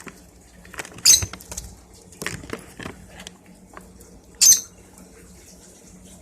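Lovebirds giving two short, shrill squawks, one about a second in and another about four and a half seconds in, with light scratching and clicking in between.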